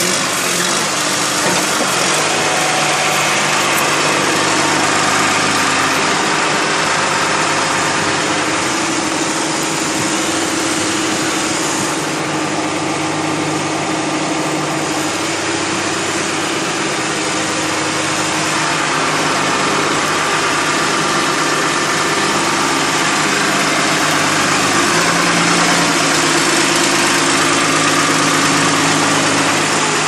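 The diesel engine of a 1996 John Deere 710D backhoe loader idling steadily.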